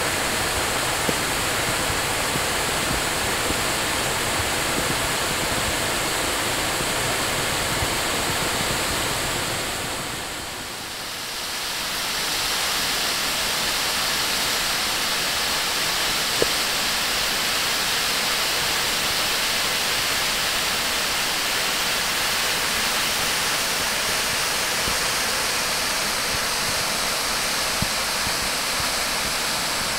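Crabtree Falls' cascades on Crabtree Creek rushing over rock, in high flow after heavy rain: a steady, loud roar of falling water. It fades briefly about ten seconds in, then returns at full strength.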